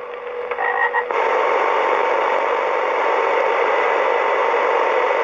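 CB radio receiver giving out loud, even static hiss that switches on abruptly about a second in, with faint steady tones under it.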